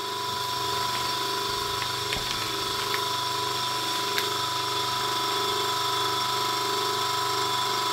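Small electric vacuum pump running steadily, pulling a vacuum through a hose on a plastic vacuum bag over a repaired composite glider wing. A steady hum with a constant whine over it and a regular pulsing.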